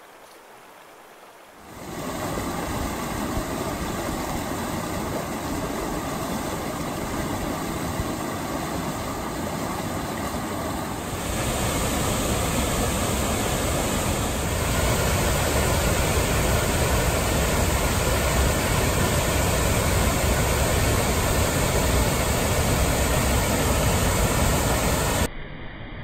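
Rushing water: a rocky creek flowing, then louder white water spilling over rocks about ten seconds in, and from about fifteen seconds a waterfall pouring into a pool, louder still. The sound drops abruptly near the end.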